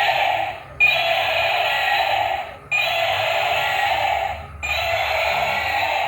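A short electronic sound effect playing on a loop, restarting about every two seconds. Each repeat begins with a brief high beep, runs as a steady hiss-like hum, and drops away sharply before the next one.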